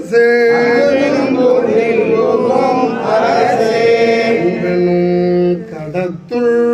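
Group of men chanting a devotional hymn together, holding long notes with several voices overlapping.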